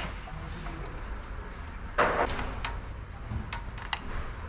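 A short hiss about two seconds in, then several light metallic clicks, with the engine stopped between cranks of a compression test. These are the sounds of the compression tester and tools being handled at the cylinder head.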